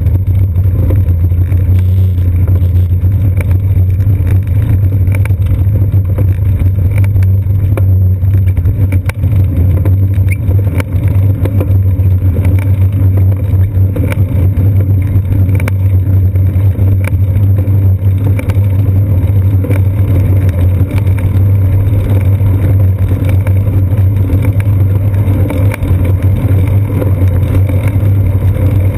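Steady low rumble of a bicycle riding along, its vibration and wind noise picked up through a seat-post-mounted GoPro Hero 2, with many small knocks and rattles from bumps in the surface.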